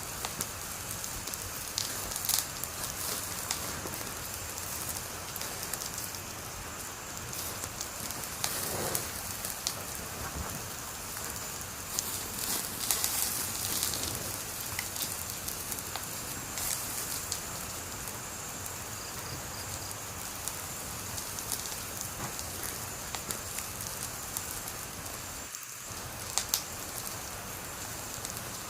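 Wood fire burning steadily with a constant hiss and frequent sharp crackles and pops, in small clusters at times.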